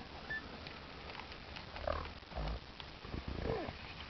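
Alpacas humming: a few short calls, the longest about three seconds in, rising and falling in pitch. Faint clicks from the alpacas eating pellets out of a plastic bowl, and a low thump about two and a half seconds in.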